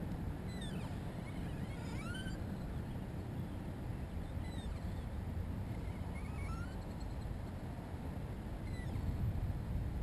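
Steady low wind rumble on the microphone over open water, with scattered short bird chirps and whistles, some rising and some falling in pitch, at several points.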